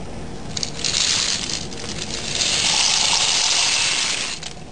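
Dry pasta shells poured from a container into a pot of boiling water: a continuous rushing pour that starts about a second in, grows louder halfway through and stops shortly before the end.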